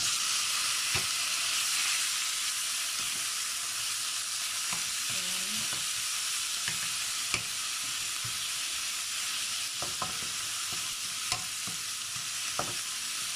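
Raw chicken pieces sizzling in hot oil in a nonstick wok, being seared to brown. The sizzle comes on hard as the chicken goes in, and a wooden spatula knocks and scrapes against the pan now and then as they are stirred.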